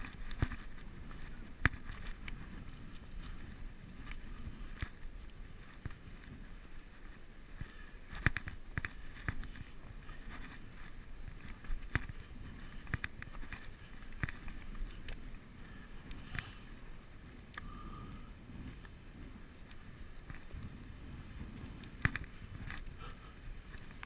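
Irregular knocks and scrapes of hands and shoes on rock while scrambling up a rock face, heard through a body-mounted action camera, over a low wind rumble on the microphone.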